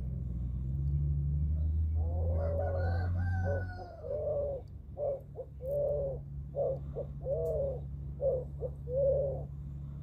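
A rooster crows once, a call of almost two seconds, followed by a run of about ten short, evenly spaced calls. A steady low hum runs underneath.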